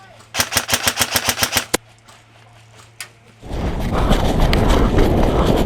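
An airsoft gun fires a short full-auto burst of about a dozen sharp shots, roughly eight a second, followed by a single shot about three seconds in. A loud rushing noise then takes over for the last couple of seconds.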